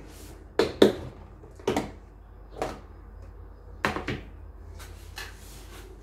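A lid being taken off the salad container and handled: a series of sharp clicks and knocks, the loudest in the first second, then fainter ones near the end.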